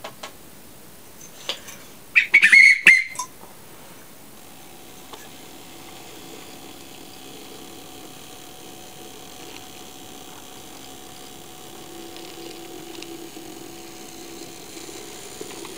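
A short, shrill whistle about two seconds in, then the steady hum of a model King Arthur class steam locomotive's electric motor as it slowly propels its coaches, growing a little louder near the end.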